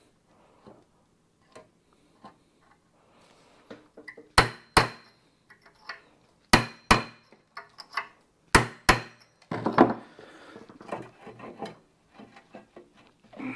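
Hammer blows on metal driving a bearing inward on a Coleman 4x4 axle hub: about seven sharp ringing strikes, mostly in quick pairs, through the middle of the stretch, then a few softer knocks and clatter.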